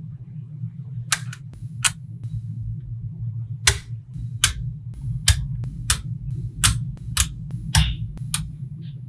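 Small magnetic balls snapping together with sharp clicks as pieces are set in place: about a dozen irregularly spaced clicks. A steady low hum runs underneath.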